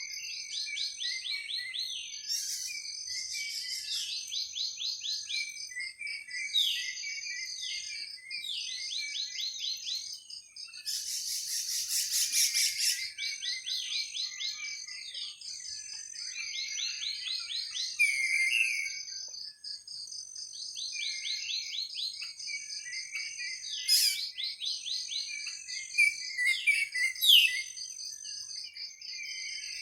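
Forest birds chirping in quick, repeated runs of short down-slurred notes, over a steady high-pitched trilling chorus. A louder buzzy burst lasts about two seconds some eleven seconds in.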